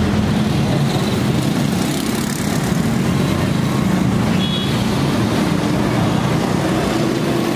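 Steady running of motor vehicle engines in street traffic, with a low hum. A brief high-pitched tone sounds about four and a half seconds in.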